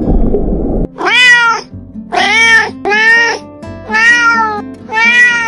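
A kitten meowing five times, about once a second, each meow rising and then falling in pitch. Before that, about a second of low rumbling noise cuts off suddenly.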